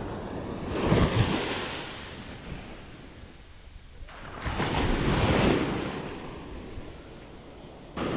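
Small waves breaking and washing up a sandy beach, the surf swelling twice about four seconds apart, with some wind on the microphone.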